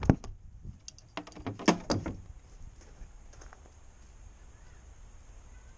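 A handful of light knocks and clicks over the first two seconds, then faint steady background noise.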